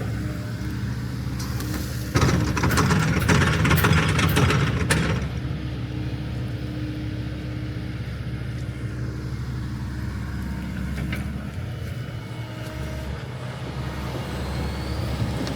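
Heavy equipment diesel engine running steadily, with a loud stretch of clattering and scraping from about two seconds in that lasts about three seconds.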